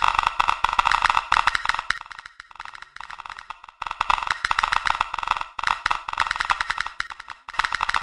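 Geiger counter clicking rapidly and irregularly, the counts thinning out for a second or two in the middle before picking up again.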